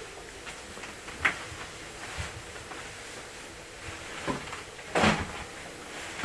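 A few scattered knocks and clunks over a steady amplified hiss: a sharp click about a second in, softer knocks near two and four seconds, and a louder thud about five seconds in.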